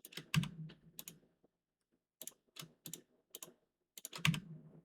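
Computer keyboard keys being tapped in three short runs of keystrokes with brief pauses between.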